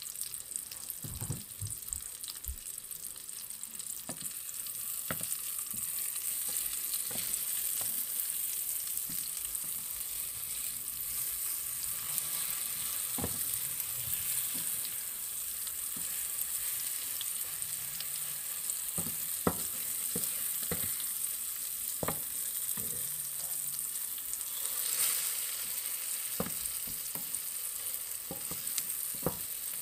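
Eggplant omelette (tortang talong) sizzling in oil in a nonstick frying pan, a steady high hiss. Wooden spatulas tap and scrape against the pan now and then, more often in the second half.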